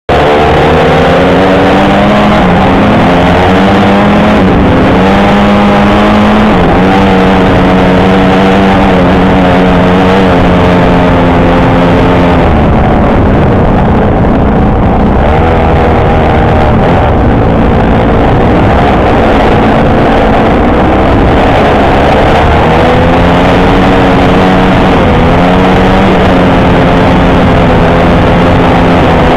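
Honda CRF150 four-stroke single-cylinder dirt bike engine at race throttle, its pitch climbing and dropping back again and again as it shifts through the gears. About halfway it eases off for a couple of seconds, then pulls hard again. A constant rushing noise runs underneath.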